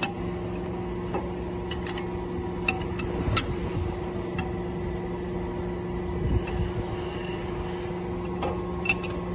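Scattered light metallic clicks and taps of a steel bar and gloved hands working against a machine's metal housing during assembly, over a steady low mechanical hum.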